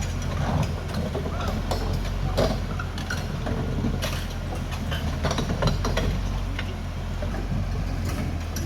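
Caterpillar D6R XL bulldozer's diesel engine running steadily, with irregular clanks and squeaks from the steel tracks and undercarriage.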